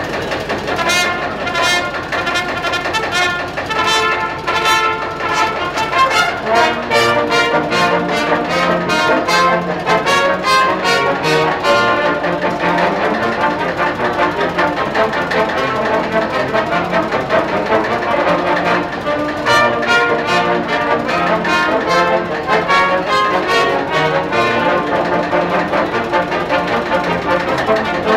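Brass ensemble of trumpets and trombones playing a tune. Beneath the tune runs a steady, rapid, even knocking from the idling engine of a vintage tractor.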